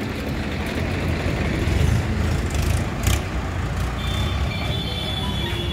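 Swaraj 855 FE tractor's three-cylinder diesel engine idling steadily.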